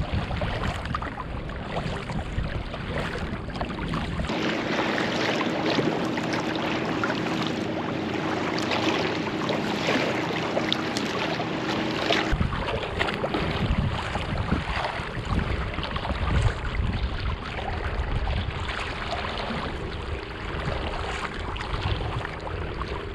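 Kayak paddles dipping and splashing in calm sea water, with wind rumbling on the microphone. The sound changes abruptly twice, about four and twelve seconds in; between those points there is less rumble and a faint steady hum.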